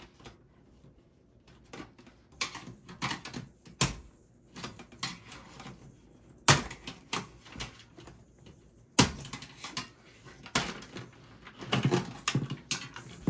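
Irregular clicks, knocks and scrapes of a screwdriver and hands working an 80 mm case fan loose from a steel PC chassis.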